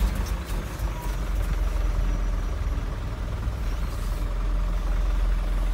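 Truck engine running steadily as the truck drives, heard from inside the cab as a low, even rumble.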